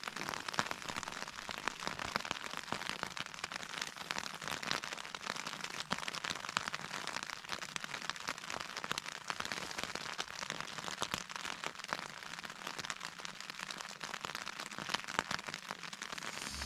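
Rain falling on a tent's fabric: a steady, dense patter of many small drops.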